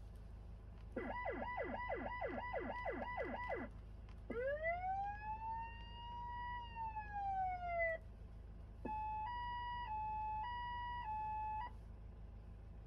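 Electronic siren of a 2010 Hyundai Grand Starex ambulance being run through its tones. About a second in comes a yelp of quick falling sweeps, about three a second, for nearly three seconds. Then comes one long wail that rises and falls before cutting off, and then a hi-lo of two tones alternating for about three seconds.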